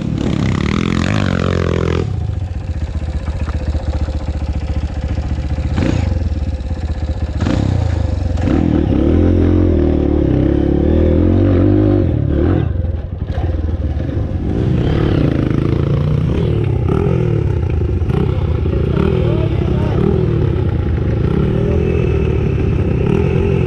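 Dirt bike engine heard close from on board, revving up and down over and over as it rides a dirt trail, with a few sharp knocks and rattles from the bike over rough ground.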